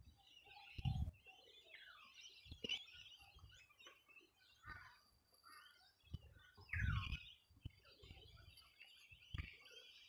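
Many small birds chirping and twittering together, with a few quick falling call notes. Several low thumps on the microphone stand out above them, loudest about a second in and again about seven seconds in.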